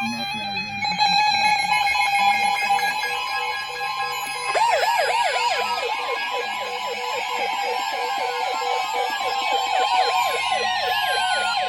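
NOAA Weather Radio's steady warning alarm tone, starting about a second in. From about four and a half seconds in, weather-alert radio receivers join it with a fast, warbling siren-like alert alarm.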